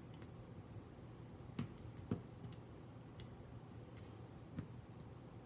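A few faint, scattered clicks and taps of small plastic and metal parts being handled as an FPV camera is pressed back into a carbon-fibre drone frame, over a low steady hum.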